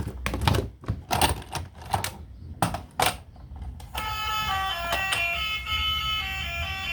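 Irregular sharp clicks and clatters, then a tinkly melody that starts about four seconds in, over a low steady hum.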